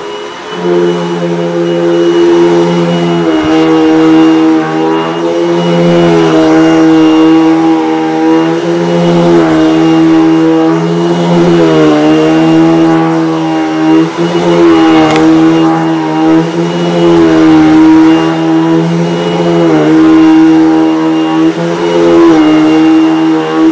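Eureka Maxima upright vacuum running on a rug with a steady high whine, its brush roll broken. The motor pitch dips briefly every second or two as the vacuum is pushed back and forth.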